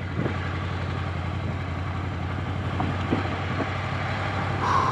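Ducati Scrambler motorcycle engine running steadily while riding a rough dirt track, with a brief higher-pitched sound near the end.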